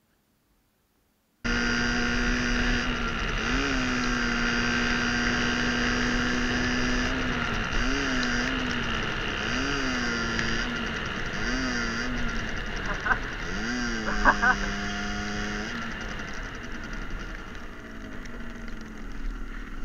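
Moped engine running steadily at high revs under way, with short throttle blips that rise and fall in pitch half a dozen times. The sound starts abruptly about a second and a half in.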